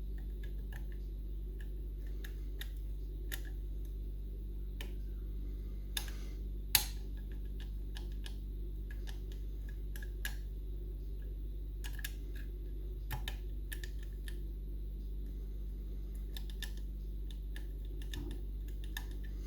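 Small, irregular metallic clicks and ticks of a homemade lever-lock pick and tension tool working the levers inside a Union Strongbolt lever mortice lock, with one sharper click about seven seconds in, over a steady low hum.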